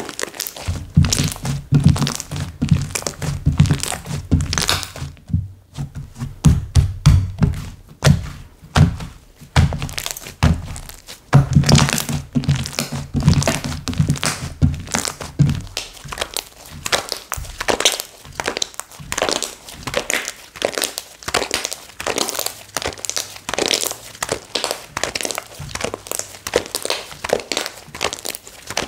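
Slime being squished and poked by hand, giving rapid wet clicks and crackles throughout. Two stretches of soft, repeated low thumps come as it is pressed and slapped, early on and again a little before the middle.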